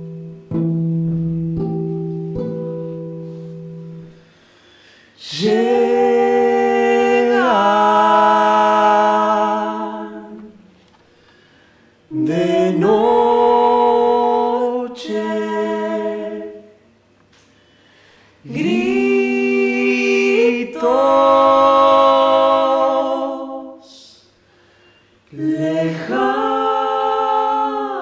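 Nylon-string classical guitar notes ringing for the first few seconds, then a man's and a woman's voices singing long, sliding phrases without words, four phrases with short pauses between them.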